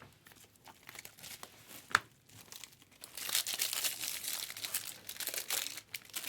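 A trading-card pack wrapper crinkling and tearing as it is opened, with one sharp click about two seconds in. The crinkling is densest from about three seconds in until near the end.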